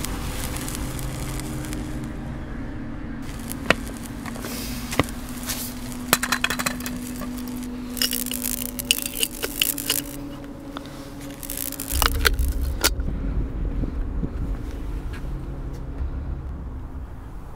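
Sound-effect electrical energy: crackles and sharp zaps over a low steady hum. The zaps come singly at first, then in dense crackling clusters, and a deep rumble comes in about two-thirds of the way through.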